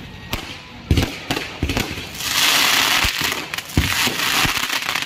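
Aerial fireworks bursting overhead: a rapid, irregular string of sharp bangs, with a loud hiss of sparks a little over two seconds in.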